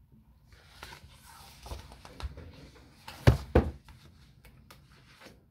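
Hardcover picture book being handled as a page is turned: faint paper rustling, two sharp knocks a little past halfway, then a few light taps.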